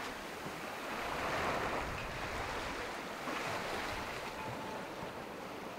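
Sea water rushing and splashing along a sailing yacht's hull under sail, with wind, swelling and easing gently with the waves.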